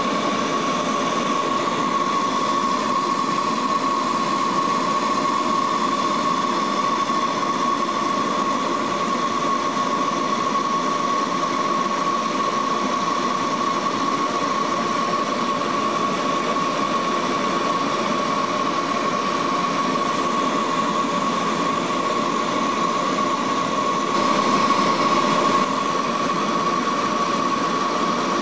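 Cabin noise of a Lockheed L-188 Electra in flight: the steady drone of its four Allison 501 turboprop engines and propellers, with a constant high whine. It swells slightly for a moment near the end.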